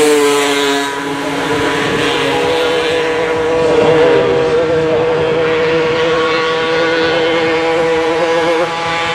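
Small two-stroke engines of racing Solex mopeds running at high revs, a steady, high-pitched buzz that wavers slightly as one machine passes close and the next comes up the track.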